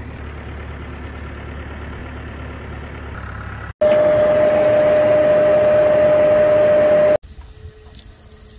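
Tractor-drawn airblast orchard sprayer at work: first a steady low engine rumble, then, about four seconds in, a much louder rush of air with a steady whine from the sprayer's fan. About seven seconds in, this cuts to a faint steady hum.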